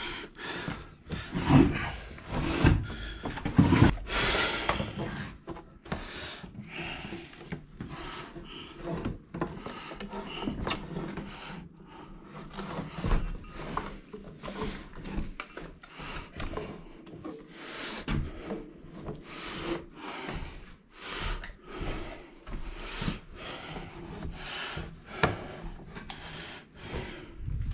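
Electrical cable being pulled through holes in wooden wall studs, rubbing and scraping against the wood in a long string of irregular strokes.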